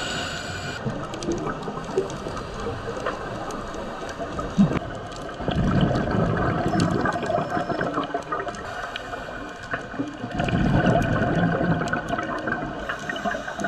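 Underwater sound heard through a dive camera's housing: scattered crackling ticks throughout, with two louder low rumbles of scuba exhaust bubbles from a diver's regulator, about five and a half and ten and a half seconds in.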